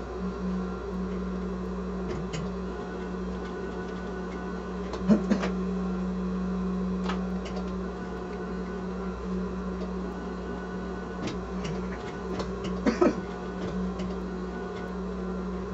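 Sewing machine running steadily while stitching down appliqué flowers, with a few sharp clicks and knocks, the loudest about five seconds in and again near thirteen seconds.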